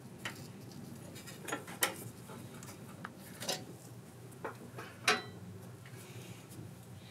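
Scattered clinks and knocks of small metal engine parts and hand tools being handled on a workbench, the sharpest about two seconds in and again about five seconds in.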